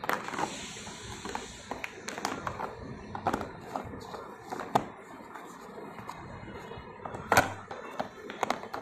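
A pencil box being handled: irregular sharp clicks and knocks as its lids and parts are moved, the loudest knock about seven and a half seconds in.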